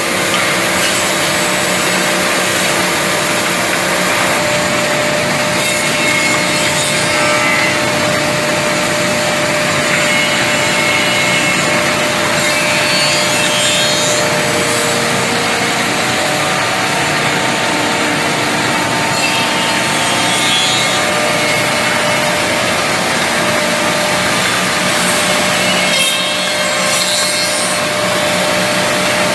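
Woodmaster WM-200B double-end CNC tenoning machine running, its spinning cutter heads milling tenons on the ends of wooden pieces. A steady machine whir under the rasp of cutters biting into wood.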